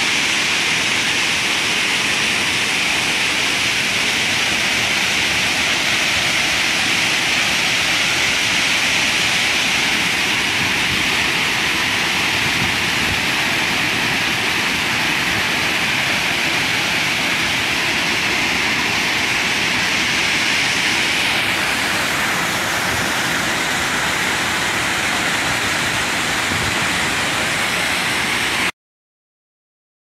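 Shakeh waterfall: water falling over rock in several cascades, a steady rushing noise that shifts slightly in tone about two-thirds of the way through and cuts off suddenly near the end.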